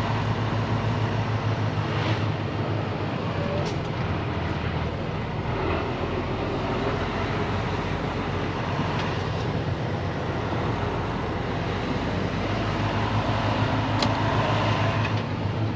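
Day-cab semi truck's diesel engine running under way, heard from inside the cab over steady road noise. The engine hum grows a little stronger near the start and again near the end.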